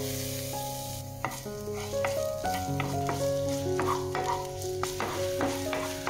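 Diced bell pepper sizzling in hot oil in a frying pan, stirred with a wooden slotted spatula that knocks and scrapes against the pan several times.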